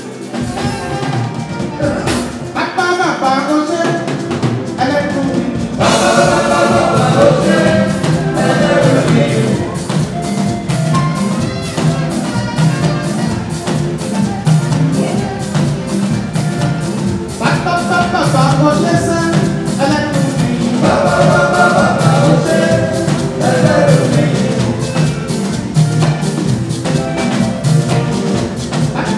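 Nigerian live band: a group of male voices sings over a drum kit, guitars and horns with a steady beat. The singing grows fuller and louder about six seconds in.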